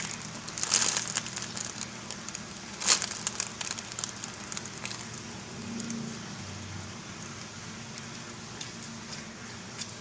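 Crinkling and crackling handling noise: a cluster of sharp crackles about half a second in and a louder snap near three seconds, then fading to a few faint ticks over a steady low hum.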